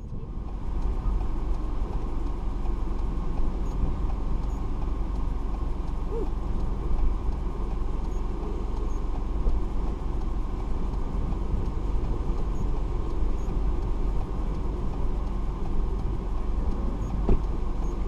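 A car running, heard from inside the cabin as a steady engine and road noise.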